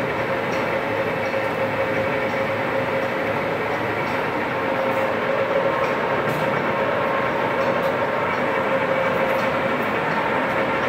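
Kingston hollow-spindle engine lathe running with its spindle and large chuck turning: a steady mechanical whir from the headstock drive with a constant hum-like tone.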